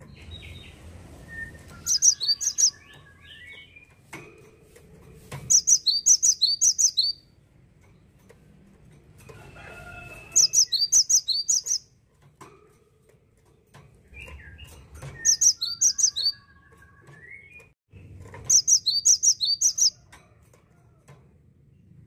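Cinereous tit singing its loud song in five short bouts a few seconds apart. Each bout is three to five rapid, high, ringing notes.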